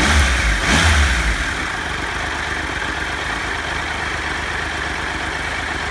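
Triumph Tiger Explorer's three-cylinder engine blipped twice in the first second and a half, then idling steadily. The idle carries the timing chain rattle that the owner reports after changing to 10w40 oil.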